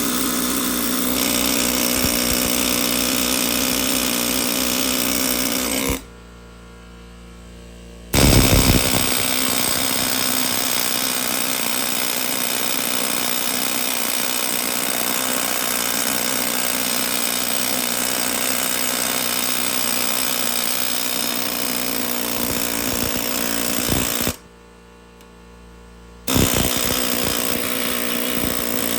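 A handheld power tool running hard against the seized engine, in long stretches that stop twice for about two seconds each and start again with a knock.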